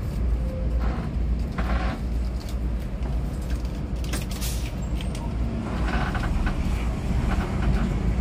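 Intercity bus under way, heard from inside the passenger cabin: a steady low engine and road rumble, with a few brief hissing flares.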